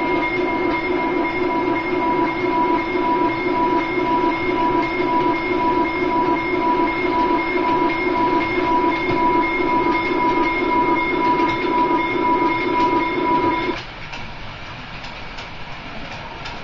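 MRC 312 sound station playing a synthesized diesel locomotive engine sound for an HO scale model train: a steady electronic drone with a pulsing low hum and two constant high tones. It cuts off suddenly about fourteen seconds in, leaving the quieter running noise of the model train on its track.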